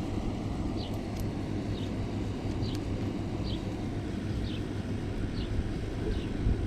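Old engine oil dripping from the drain hole into a drain pan: a faint high plink about once a second, the drips slowing as the draining ends, over a steady low outdoor rumble.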